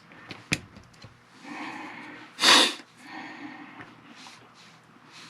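Small parts of a cassette recorder being handled during reassembly: a sharp click about half a second in. About two and a half seconds in comes a loud, short burst of breath-like noise, the loudest sound here.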